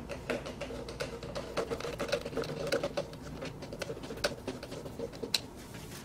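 Screwdriver turning the worm screw of a hose clamp on a rubber flexible coupling, tightening it: a steady run of small, irregular clicks and ticks.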